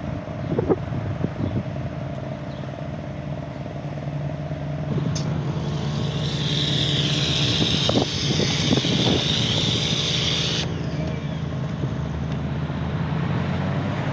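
Small portable generator engine running steadily. About five seconds in, a power washer starts spraying with a loud hiss, and about six seconds later it cuts off suddenly as the trigger is let go.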